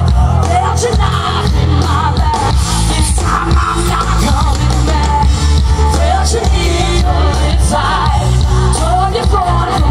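A rock band playing live through a PA: a woman singing lead over bass guitar, electric guitar and drums.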